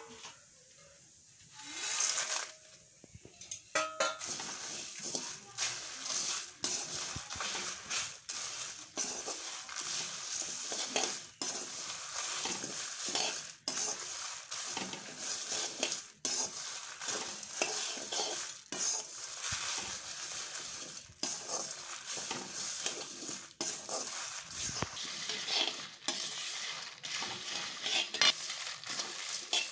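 Dry whole spices (coriander seeds, cumin, fennel, cloves, cardamom, dried red chillies, bay leaves) being stirred with a metal ladle in a dry kadai, roasting without oil: a continuous rustling of seeds against the pan with frequent scrapes and knocks of the ladle. The stirring starts about two seconds in and runs on steadily from about four seconds.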